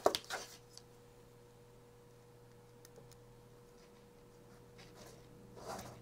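Hands pushing jumper wires onto a board's header pins: soft rustling and a few faint clicks, with a short louder handling noise at the start and another shortly before the end, over a faint steady low hum.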